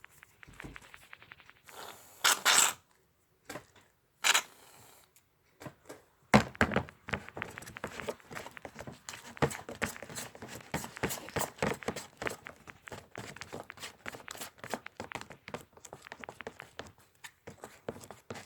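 Glue and shaving cream being stirred and folded in a bowl with a mixing tool, a quick irregular run of small sticky clicks and scrapes from about six seconds in. Two short hissy bursts come before it.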